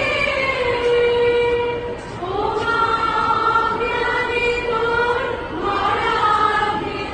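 A large group of young female voices singing together in unison, holding long notes, with the melody moving to new phrases about two seconds and five and a half seconds in.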